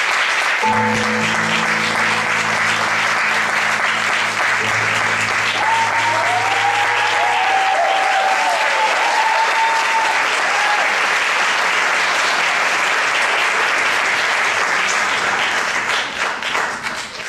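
Audience applauding steadily over the rumba music's final long-held chord, which comes in just under a second in and fades away about halfway through. A few cheering calls rise from the crowd in the middle, and the applause drops off at the very end.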